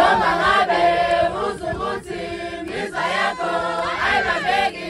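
A group of women and girls singing together in chorus, a traditional Zulu ceremonial song, starting abruptly.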